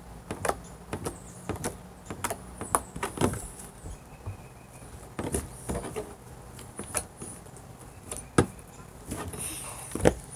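Fingers squishing, poking and pressing a lump of fluffy slime made from glue and shaving cream, giving irregular sharp clicks and pops, some of them loud, for slime ASMR.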